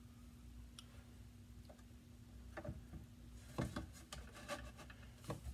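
Small clicks and knocks of the tumbler being set on the wheel head and the plastic Giffen grip pads being slid in against it, bunched together a little past halfway, over a faint steady hum that fades about the same time.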